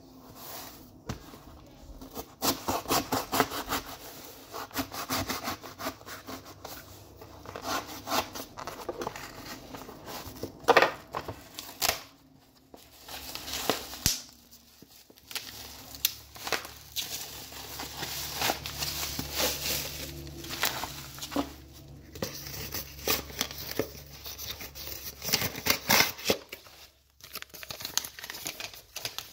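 Cardboard shipping box being opened by hand and bubble wrap handled and pulled out: irregular crackling, crinkling and rubbing, with a few sharper cracks.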